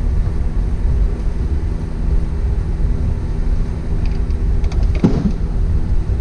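Steady low mechanical rumble and hum, like a running engine or machine, with a few faint clicks about four to five seconds in.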